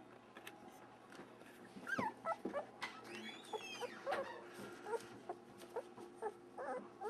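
Yellow Labrador retriever puppies, about a week old, squeaking and whimpering. They give short high squeaks from about two seconds in, with one longer whine about three seconds in that rises and then falls.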